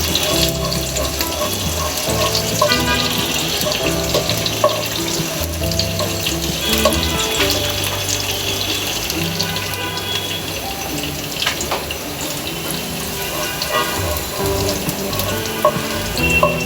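Minced garlic sizzling steadily in butter and oil in a frying pan, with background music playing.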